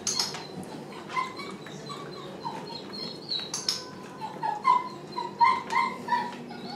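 Dog whining in a string of short, high whimpers, bunched close together in the second half, with a few sharp clicks among them.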